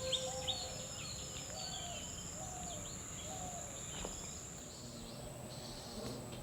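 Outdoor ambience: birds chirping, with a run of quick falling chirps at the start and a few lower warbling calls after, over a steady high-pitched insect buzz.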